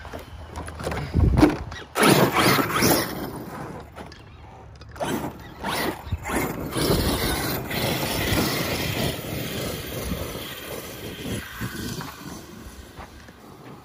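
Arrma Kraton 8S electric RC monster truck driven hard over dirt: motor and drivetrain running in bursts, with tyres scraping and throwing dirt and a dull thump about a second in.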